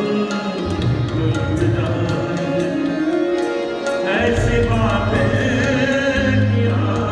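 Live ghazal music: harmonium and tabla playing, with the tabla's deep bass drum sounding strongly, and a man's voice singing over them from about four seconds in.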